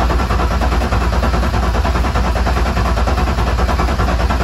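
Starter motor cranking a freshly built turbo BMW M50 inline-six at about 190 rpm without fuel, a steady rapid chugging, to prime oil pressure before first start; the engine is not firing and oil pressure still reads zero.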